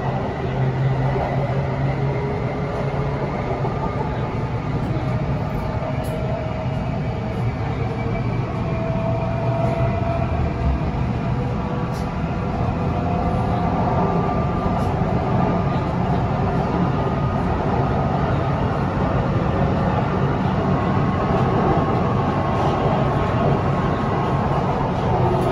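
BTS Skytrain electric train running along the line, heard from inside the carriage: steady rumble and running noise, with a faint whine that shifts in pitch.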